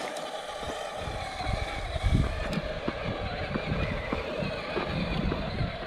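Electric motor and gearbox of a 1/10-scale RC crawler truck whining steadily as it crawls over an obstacle. Irregular low thumps start about a second in.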